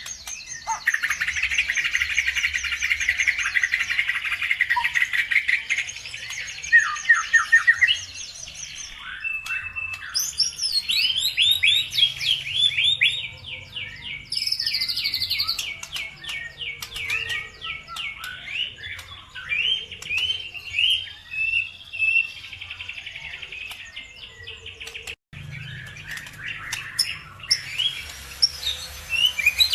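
Small songbirds singing, a lure song for getting other birds to sing: long fast chattering trills and quick runs of high chirps, changing phrase every few seconds. There is a brief break about 25 seconds in.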